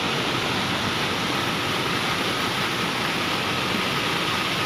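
Floodwater pouring over an overflowing lake's spillway: a steady rushing of water.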